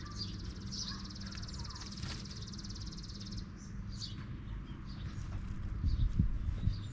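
Birds chirping in short high calls, with a high, rapid trill that runs for about the first half and then stops, over a low steady hum; a few low bumps come near the end.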